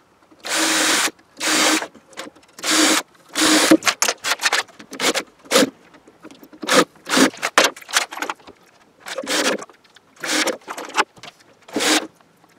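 Makita cordless drill boring holes into wooden boards in many short runs, the motor starting and stopping again and again: longer runs in the first few seconds, shorter, quicker ones after that.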